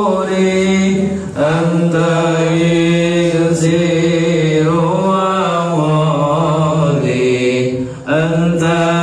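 A male voice chanting a devotional Islamic melody in long, held notes, breaking briefly for breath about a second and a half in and again near the end.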